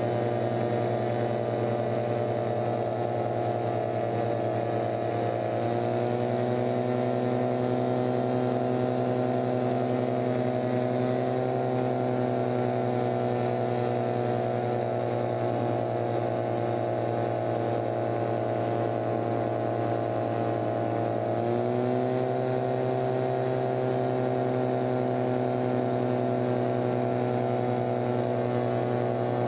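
Paratrike engine and pusher propeller droning steadily in flight, close up. The revs step up about six seconds in, and near the end of the third quarter they dip briefly and rise again.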